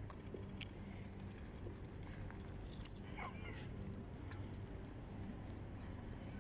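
Several cats eating from food trays, with small chewing and smacking clicks over a steady low hum. A short wavering meow comes about three seconds in.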